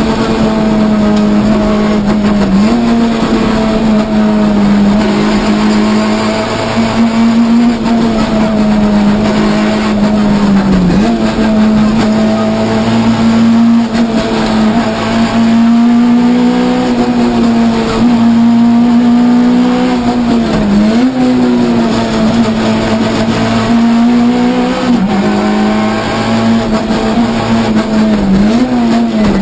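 Citroën C2 R2 rally car's four-cylinder engine heard from inside the cabin, running hard at a steady high pitch, with brief dips and recoveries in pitch several times.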